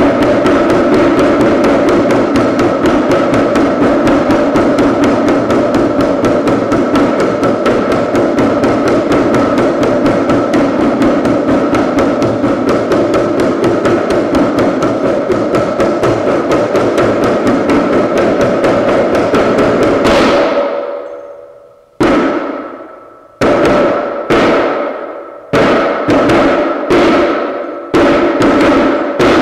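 Dhyangro, the Nepali double-headed frame drum, played in a fast, continuous roll of strokes with a steady ringing tone. About two-thirds of the way through the roll stops and fades away, and single strokes follow, each ringing out, coming quicker toward the end.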